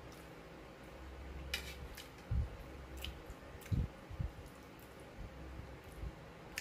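Quiet eating sounds: a mouthful of pasta being chewed, with a few scattered light clicks of a fork against a bowl and some soft low thuds.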